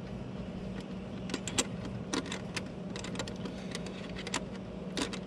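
Scattered light metallic clicks and taps of a nut, washers and wrench on a transducer's stainless steel mounting bracket as the bolt is snugged up, over a steady low hum.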